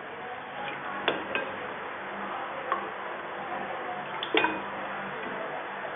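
Steel spoon stirring thin mango juice in a ceramic bowl, with a few sharp clinks against the bowl, the loudest about a second in and just after four seconds, over a steady hiss.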